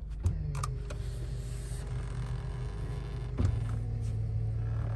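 Electric motors of a motorized seat unit in a luxury van conversion running after a click, a steady whir as the seats unfold to turn two places into four. About three and a half seconds in there is a clunk, and the motor hum drops lower and gets louder.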